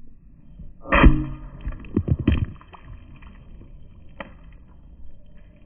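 Sledgehammer striking a plastic water bottle: one loud blow about a second in, two or three more hits around two seconds, and a lighter knock near four seconds.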